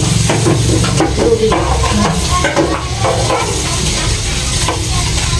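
Food sizzling in a frying pan on a gas stove while a utensil stirs it, with light clinks against the pan.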